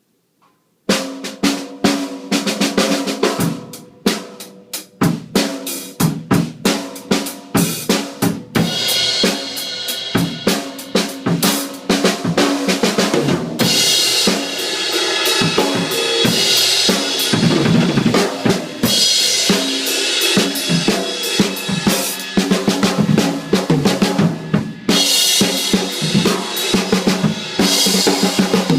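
Yamaha Stage Custom drum kit being played: snare, bass drum and pitched tom hits start about a second in, with a brief let-up around four seconds. After that come steady grooves with cymbals crashing and washing over long stretches.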